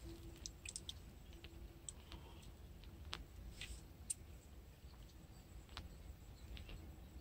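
Faint, scattered small clicks and ticks from hands working a small fishing hook and line, over a low steady rumble.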